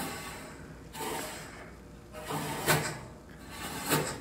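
Expanded-metal steel cooking grates sliding in and out on the rack rails of a smoker's cooking chamber: three scraping slides about a second apart, metal grating on metal, the later two ending in a clank.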